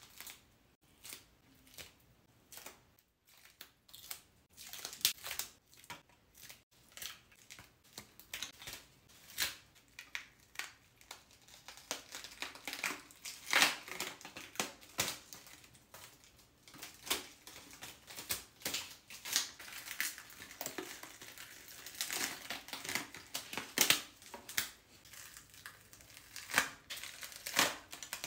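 Crackling, crinkling and crushing handling noise as SFX makeup prosthetics, spiked neck pieces and a bat-winged bald cap, are pulled and peeled off the skin. Many short sharp crackles and snaps, sparse at first and much busier from about the middle on.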